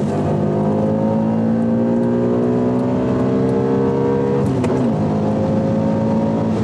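Audi RS4 Avant's engine heard from inside the cabin while accelerating, its pitch climbing steadily through a gear, dropping briefly at an upshift about four and a half seconds in, then climbing again.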